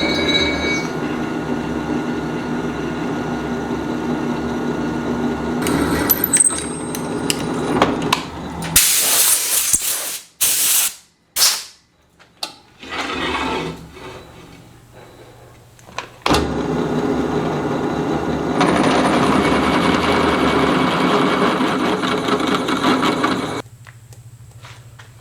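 Electric drill boring holes in thick steel plate, running steadily in two long stretches with abrupt breaks and a few clanks between them.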